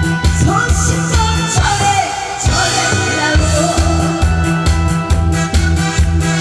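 Upbeat pop music with a steady beat and a singing voice.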